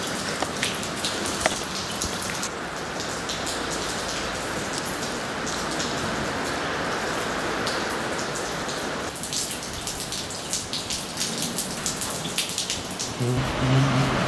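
Heavy rain falling inside a derelict building through its broken roof: a steady hiss with many separate drop hits on wet hard surfaces. The mix of hiss and drops shifts abruptly twice.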